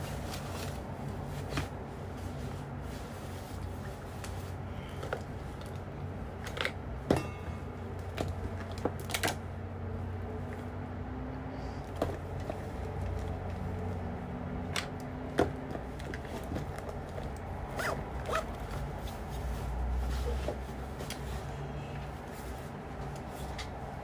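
Small objects being handled: scattered light clicks and rustles at irregular intervals, the sharpest about seven seconds in, over a low steady hum.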